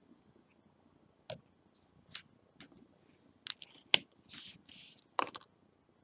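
Small sharp clicks and taps of nail-stamping tools handled on a metal stamping plate, the loudest about four seconds in, with two short scraping sounds just after it.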